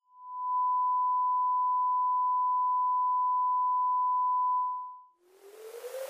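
A steady, pure electronic tone, like a test tone, fades in, holds for about four seconds and fades out. Just after it ends, a hissy rising whoosh begins and builds toward music.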